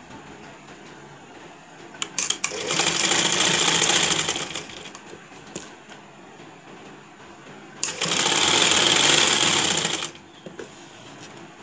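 Domestic sewing machine stitching lace onto net fabric in two runs of about two and a half seconds each, the first starting about two seconds in and the second near eight seconds, with a pause between.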